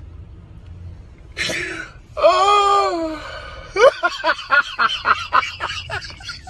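A person's voice: a breathy exhale, then a drawn-out vocal exclamation that rises and falls in pitch, then a quick run of laughter of about four or five pulses a second.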